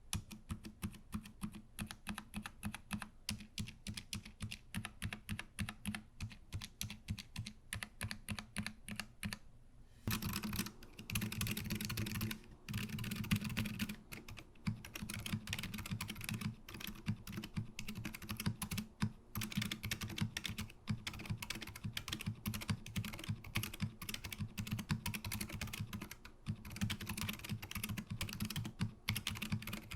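Continuous fast typing on a mechanical keyboard fitted with stock FEKER Aphonia silent switches: rapid soft keystroke clicks and clacks. About ten seconds in, after a brief pause, the typing turns louder and brighter.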